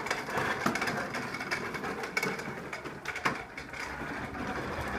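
Toy bubble lawn mower pushed along, its mechanism clattering and whirring steadily like a small motor, with a sharp click about three seconds in.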